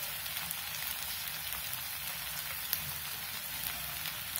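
Onion and tomato masala sizzling steadily in oil in a nonstick pan, with a few faint crackles.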